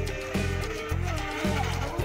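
Background music with a steady beat, its bass pulsing about twice a second.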